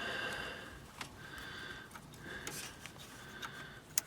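A zip tie being pulled tight through its ratchet to hold a tie rod boot in place. It buzzes in several stretches of about a second each, with short gaps and clicks between pulls.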